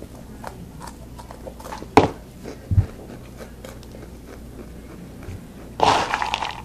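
A person chewing a mouthful of crunchy cheese snacks, Flamin' Hot Cheetos and spicy Cheez-Its, with many small crunches. There is a sharp knock about two seconds in, a low thud just after, and a louder rustling burst near the end.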